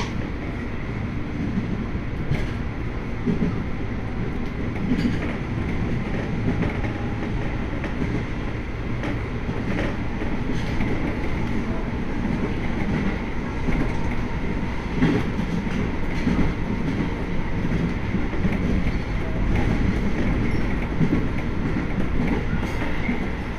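Electric commuter train running along the track, heard from inside the front car: a steady rumble of wheels on rails with a few faint rail-joint clacks and a faint steady whine.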